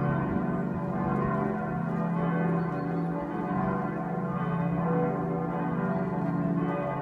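Church bells ringing, several bells overlapping in a continuous peal.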